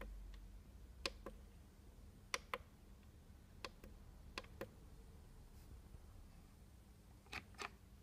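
Go and stop keys on an Intellibox model-railway command station clicking as they are pressed and released, in about five quick pairs, over a faint low hum.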